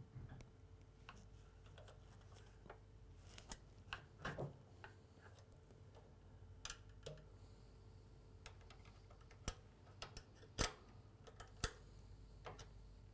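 Scattered short clicks and taps of a spanner and Allen key on the mower's belt-tensioner fixings and bracket as they are slackened to take tension off the rear roller belt; the sharpest click comes about two-thirds of the way through.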